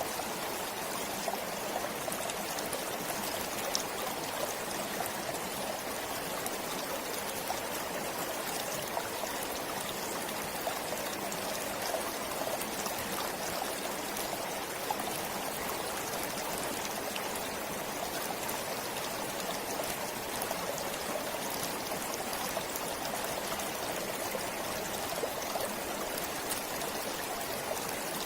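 A forest stream running steadily: a continuous, even rush of flowing water, with faint scattered ticks of small splashes.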